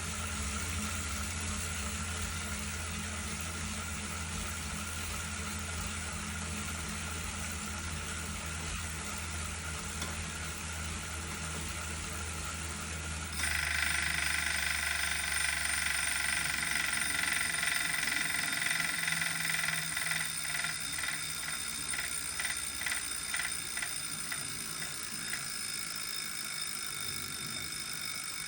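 Wahoo Kickr smart bike trainer running with a steady whir, which gets suddenly louder and higher about halfway through, and a regular clicking of about two to three clicks a second in the second half: the unwanted clicking noise of the trainer.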